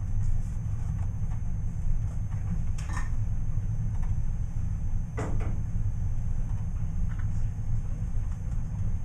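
Classroom background noise: a steady low rumble with two short knocks, about three and five seconds in.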